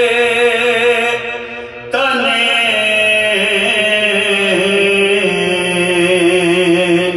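Men's voices chanting a soz, an unaccompanied Urdu lament, in long drawn-out held notes. One phrase fades about a second in, and after a short breath a new phrase begins at about two seconds.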